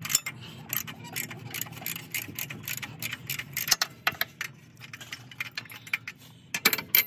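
Socket ratchet wrench clicking in quick, irregular runs as a bolt is turned. A few louder metallic clacks of the tools come near the end.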